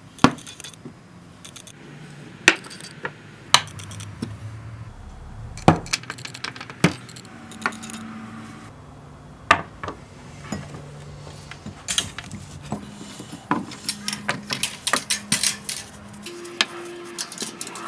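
Small hard objects handled on a wooden workbench: scattered sharp clicks and clinks, with a quick run of them about fourteen seconds in.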